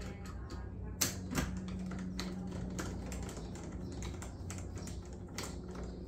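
Screwdriver turning a screw in a metal lever-handle door lock: light, irregular clicks and ticks of metal on metal, a sharper click about a second in. A steady low hum runs underneath.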